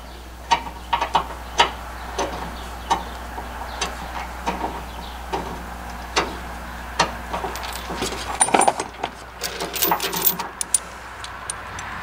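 Steel safety chain clinking and rattling as it is handled and hooked onto a trailer hitch mount: a run of sharp metal clinks, thickest from about eight and a half seconds in.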